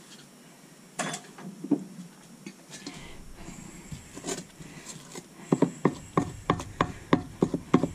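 Thick cake batter being stirred by hand in a stainless steel mixing bowl, the utensil knocking against the bowl's side. About five seconds in, it turns into a quick run of sharp knocks, about four a second.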